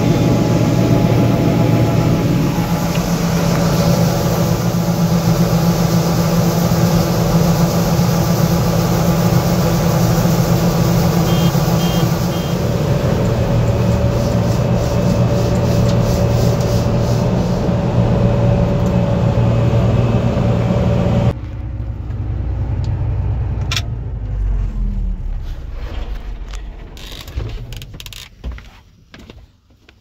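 Combine harvester running steadily, heard from inside the cab, with a steady engine hum. About two-thirds of the way in it shuts down: the sound drops off abruptly and winds down with a falling pitch, leaving scattered clicks and knocks as it fades.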